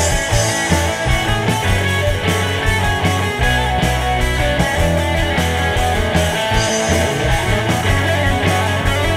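Rock band music, electric guitar over low bass notes, with a steady beat.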